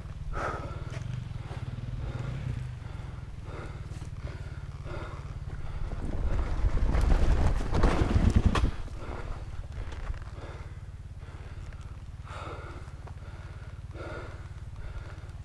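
Yamaha 250 dirt bike engine running at low throttle, opened up hard for about two seconds around the middle, then dropping back to a low, steady run.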